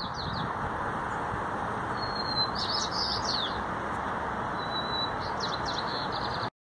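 Small birds chirping in three short bouts of quick, high, downward-sliding chirps over a steady background hiss. The sound cuts off abruptly near the end.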